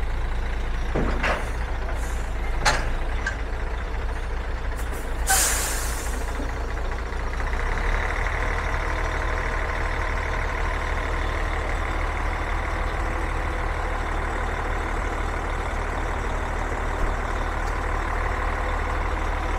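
Heavy tractor-trailer truck's diesel engine idling steadily, with short hisses of air about a second in and near three seconds and a longer air-brake hiss around five seconds. From about eight seconds the engine runs a little higher and holds steady.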